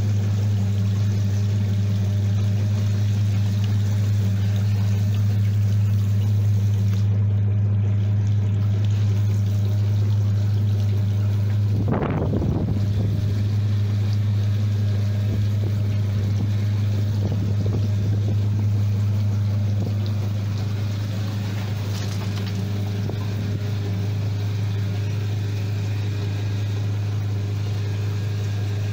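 Steady, deep electric-motor hum of ore-processing machinery at work, with water running over a shaker table deck. There is a brief thump about twelve seconds in.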